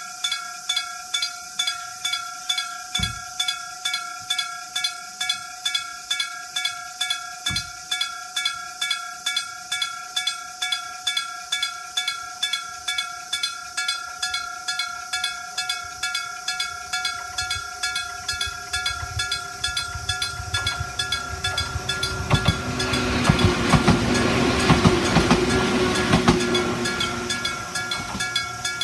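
Electric-bell level-crossing signal ringing steadily, its hammer striking the gong about twice a second. About two-thirds of the way through, a train passes over the crossing with a rising rumble and wheel clacks over the rail joints, then fades while the bell keeps ringing.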